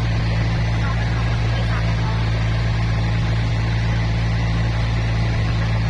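Motorboat engine running steadily at cruising speed, a constant deep drone over the rush of water past the hull.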